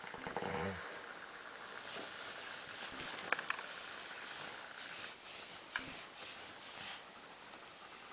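A sleeping man snoring: a short rattling snore in the first second, then hissing, breathy breaths, with two sharp clicks partway through.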